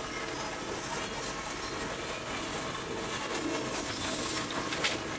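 Shoe-factory machinery running: a pneumatic shoe-making machine working on shoes held on lasts gives a steady mechanical noise, with a few sharp clicks near the end.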